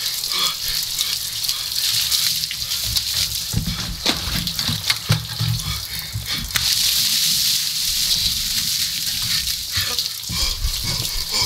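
Ice water pouring from a plastic container over a seated man and splashing onto a wooden deck. It comes in repeated dousings, with the heaviest gush about two-thirds of the way in. His yelps and gasping cries come through between the pours.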